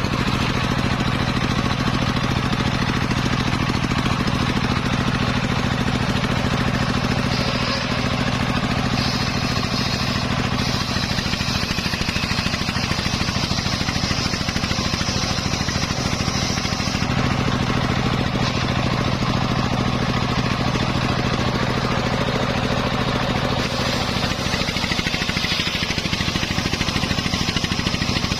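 Engine-driven homemade circular saw running steadily while sawing teak wood. A higher-pitched sawing sound from the blade in the wood comes in about 7 seconds in, fades out around 17 seconds, and returns for the last few seconds.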